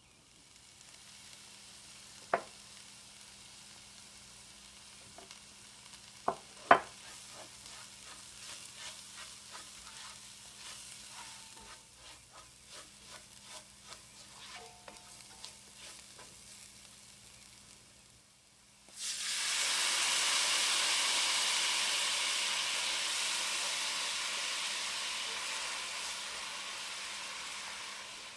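Food frying in oil in a cooking pot, with stirring and a few sharp knocks of a utensil in the first half. About 19 seconds in, a sudden loud sizzle sets in as something is added to the hot pot, then slowly dies down.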